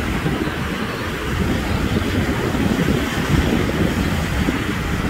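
Wind buffeting the microphone in a steady rumble, over the hiss of breaking surf.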